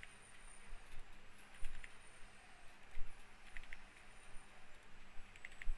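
Computer keyboard keystrokes and mouse clicks in short clusters about every two seconds, over a faint steady hum.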